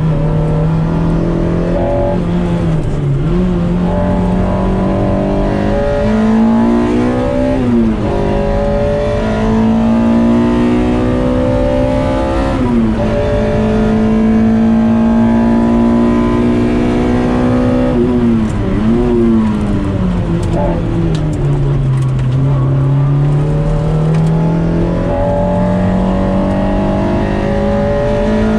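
Toyota 2ZZ-GE four-cylinder engine in a hill-climb MR-S, pulling hard under load. Its pitch climbs steadily and bends sharply at several gear changes.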